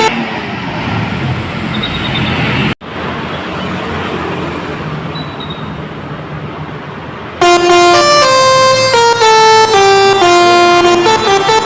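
Road and traffic noise, then from about seven seconds in an Indonesian 'telolet' bus's multi-tone air horn plays a loud tune of held notes stepping up and down in pitch.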